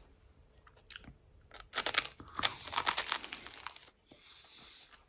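Crunchy, dry toast being chewed close to the microphone, in a crackly run of bites for about two seconds, then fading to quiet.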